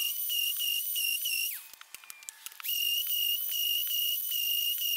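DeWalt random orbital sander running with a steady high-pitched whine. It cuts out for about a second partway through, then runs again.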